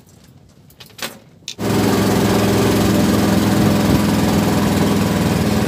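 A small boat's motor running steadily at a constant speed. It comes in suddenly about a second and a half in, after a few faint clicks.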